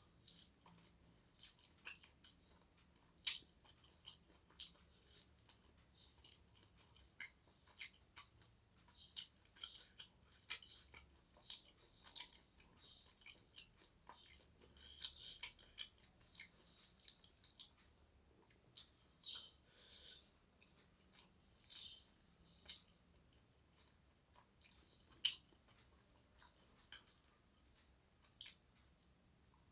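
Faint, irregular wet clicks, smacks and crackles of a person chewing and eating rice with chicken, egg and tempeh by hand, with a few sharper clicks standing out.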